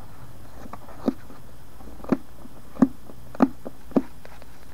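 Five dull knocks of a hand on the plastic body of an electric lawnmower, picked up through the housing the camera is mounted on. The first two are about a second apart, and the rest come faster.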